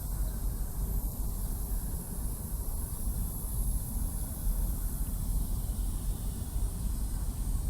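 Steady outdoor ambience dominated by a low rumble, with a faint high hiss above it and no distinct events.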